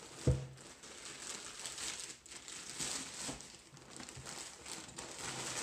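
Plastic postal satchel and plastic wrapping crinkling and rustling as they are handled and pulled open. One sharp thump sounds about a quarter second in.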